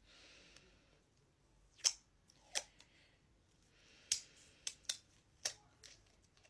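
Plastic cosmetics tube being handled and worked open by hand: a scatter of about seven sharp little clicks with soft rustling between them.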